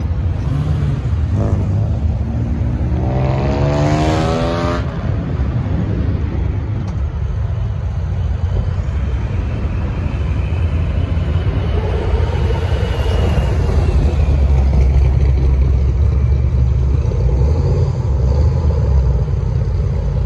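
Car engines with loud exhausts driving past one after another. A couple of seconds in, one engine revs hard in a steep rising sweep that cuts off about five seconds in; after that comes the low, steady rumble of the other cars rolling by.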